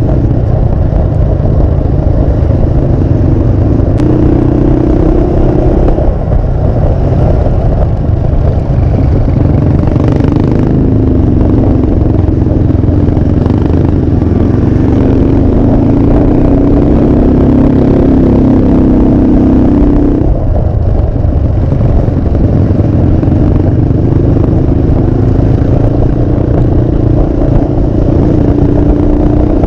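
Motorcycle engine running under way with heavy low wind rumble on the microphone. The engine note rises and falls with the throttle and drops sharply about two-thirds of the way through before building again.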